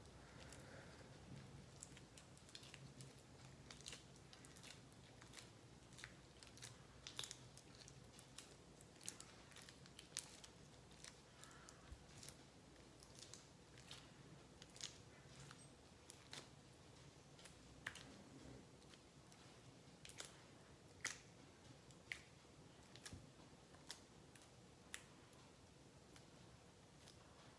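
Faint, irregular sticky clicks and squelches of slime being stirred with a spatula as activator is worked in.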